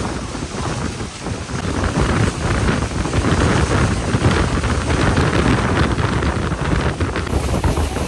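Strong wind buffeting the microphone, mixed with the steady rush of Niagara Falls and its spray close by. It grows louder about two seconds in.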